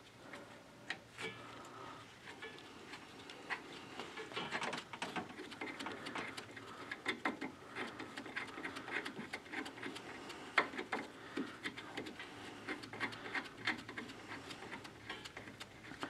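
Irregular small metallic clicks and rubbing as gloved fingers handle and thread the adjustment screw and nut on a parking-brake bell crank.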